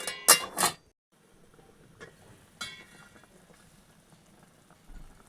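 Metal cooking utensils clinking sharply against a pot a few times, then a faint steady hiss with an occasional light clink.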